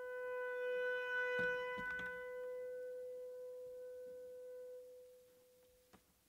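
Alto saxophone holding one long note that slowly fades away about five seconds in. A couple of dull thumps sound beneath it between one and a half and two seconds in.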